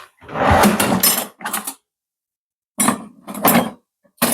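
Kitchenware being handled on a counter: bowls and utensils knocking and scraping together in several short clatters.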